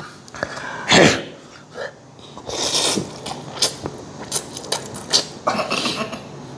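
A man slurping up mouthfuls of cold naengmyeon noodles in a run of short, hissy sucks. About a second in there is one sharp cough-like burst from his throat.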